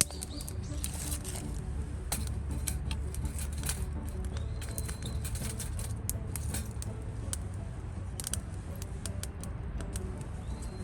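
Wood campfire crackling, with irregular sharp snaps and pops over a steady low rumble. A thin high whistle sounds for about a second, roughly four seconds in.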